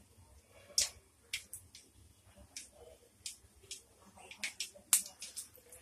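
Mustard seeds spluttering in hot oil in a kadai: irregular sharp pops, a few each second, the loudest about a second in and near the end. The popping is the tempering cue that the oil is hot enough and the seeds are bursting.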